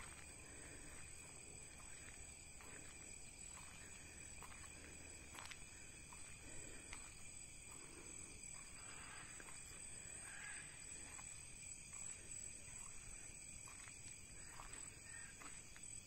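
Faint forest insect chorus: several steady high-pitched tones droning without a break, with soft scattered ticks.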